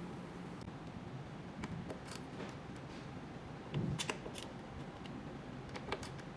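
Scattered light metallic clicks and ticks of a hand tool working the screws around a motorcycle's fuel filler cap, with the loudest cluster of clicks about four seconds in.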